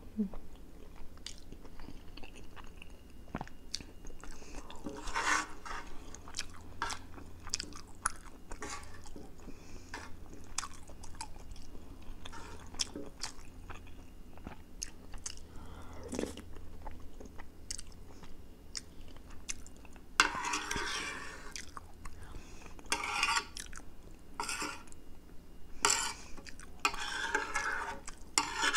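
Close-miked wet chewing of soft egg omelette in chili sauce with melted cheese, with many small mouth clicks and smacks. In the later part there are short clusters of scraping and clinking from a fork on the plate as more food is cut and gathered.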